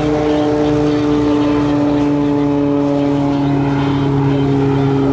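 Aircraft engines running loud and steady, their hum drifting slowly lower in pitch.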